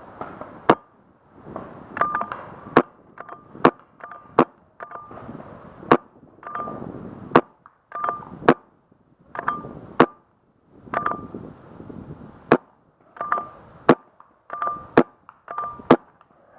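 Empire Sniper pump-action paintball marker fired over and over, about one sharp crack a second, with the rasp of the pump being worked back and forth before each shot.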